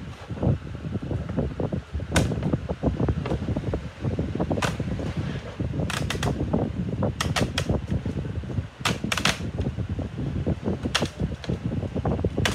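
ASUS X543UA laptop keyboard and its plastic case being pressed down by hand: about a dozen sharp plastic clicks and snaps at irregular intervals, over steady rustling and knocking of handling.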